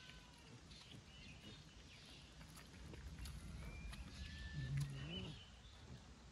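Faint animal sounds: a few short high chirps and whistles with scattered light clicks, and one short low call rising in pitch about four and a half seconds in.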